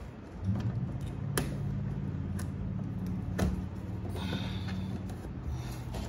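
Plastic fairing work on a motorcycle: a push-rivet pried out and the lower cowl panel pulled free, giving a few sharp plastic clicks about a second apart and some scraping of plastic near the end, over a steady low hum.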